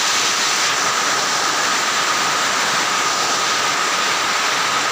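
Steady loud rushing noise with a thin, steady high whine through it.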